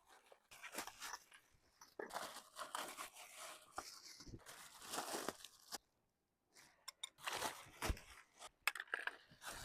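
Faint, irregular rustling and crinkling of packaging with light clicks and knocks as pressure washer parts are unwrapped and handled.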